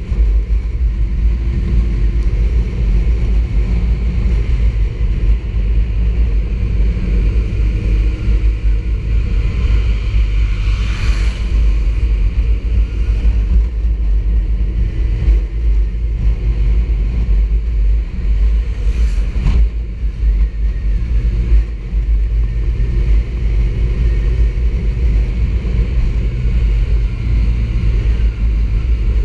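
Sport motorcycle riding at steady road speed: heavy wind rush on the camera microphone over the engine's drone, with two brief swishes partway through.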